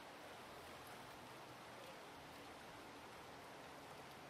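Near silence: a faint, steady rush of creek water, with a faint low hum underneath.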